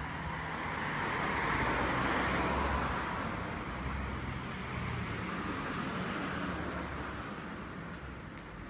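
Cars passing on a city street: tyre and engine noise that swells to its loudest about two seconds in and eases off near the end, over a steady traffic background.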